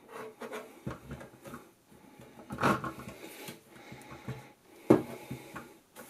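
Plastic casing of a compact dehumidifier being turned and shifted on a wooden tabletop: irregular rubbing and scraping with a few knocks, a sharp one about five seconds in.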